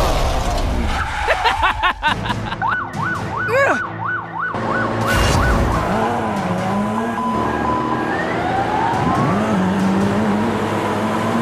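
Emergency-vehicle siren sound effects: a fast yelping siren from about two and a half to four and a half seconds in, then slower wailing tones that rise and fall through the rest.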